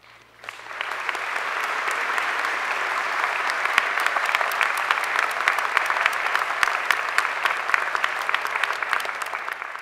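Large audience applauding, starting about half a second in and swelling within a second into steady, dense clapping.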